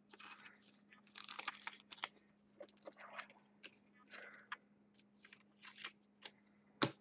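Trading cards being handled and slid over a table mat: faint, scattered rustles and scrapes, with one sharp click near the end. A faint steady hum runs underneath.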